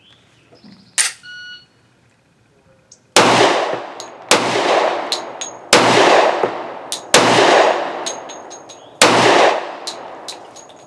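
A Sig P320 X-Ten 10mm pistol fired five times at an unhurried pace with 170-grain rounds, each shot followed by a long fading echo, and it cycles without a problem. About a second in, before the shots, comes a single sharp metallic clack with a short ringing tone.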